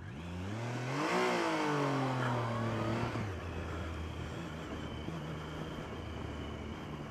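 Motorcycle engine revving as the bike pulls away, its pitch climbing for about a second and then easing off over the next two, after which it runs steadily and quieter under wind noise.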